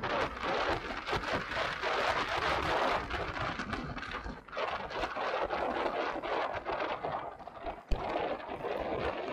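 Wind buffeting the microphone over the running tyre noise and rattling clicks of a mountain bike being ridden along a trail, with a single sharp knock near the end.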